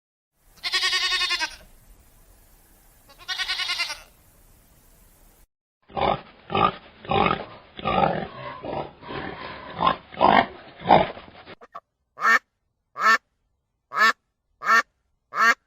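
Several animal recordings one after another: two drawn-out, high-pitched calls, then a rapid run of grunts lasting about six seconds, then six short barks about two-thirds of a second apart.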